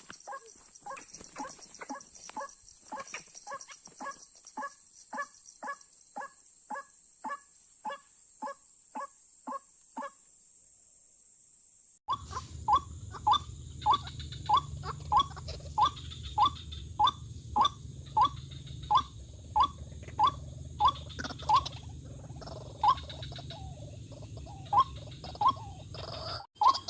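White-breasted waterhen calling: a long run of short, identical 'kook' notes, about two a second. It stops about ten seconds in and starts again two seconds later over a low steady hum.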